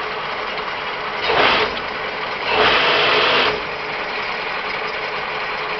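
6T82G horizontal milling machine running with a steady mechanical hum and a faint steady tone. Two louder hissing surges rise over it, a short one about a second in and a longer one of about a second near the middle.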